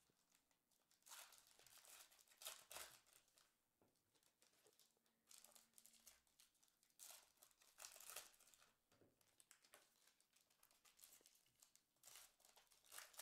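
Foil trading-card pack wrapper being torn open and crinkled by hand, with faint crackling in several short bursts.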